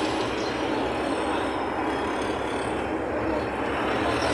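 Steady noise of passing highway traffic.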